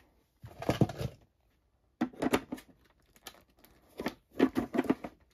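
Handling of a large plastic Brachiosaurus figure's parts: the neck piece rubbing and knocking against the hard plastic torso and its square socket as it is lined up, in three short bursts of rustling and clicks.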